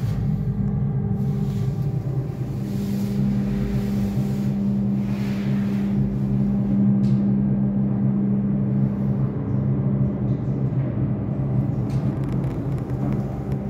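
Steady low mechanical hum of machinery running, made of several steady low tones over a rumble, with a stronger tone in the middle part.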